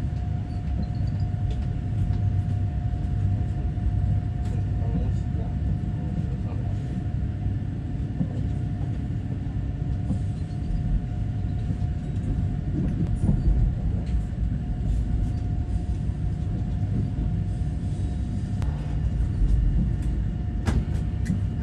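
Fuxing CR200J train running steadily at speed, heard from inside a passenger car: a continuous low rumble of wheels on rail with a constant steady hum, and a couple of sharp clicks near the end.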